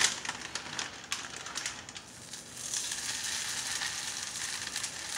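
Keto coconut-flour tortilla going into a hot, lightly oiled cast-iron skillet: scattered crackling and rustling for the first two seconds, then a steady sizzle from about two and a half seconds in as the dough sits on the hot iron.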